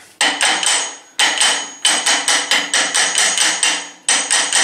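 Small hammer tapping an electric motor's end cover down onto the shaft's new bearing to seat it evenly. Quick strings of light, ringing metal taps, about five a second, broken by short pauses.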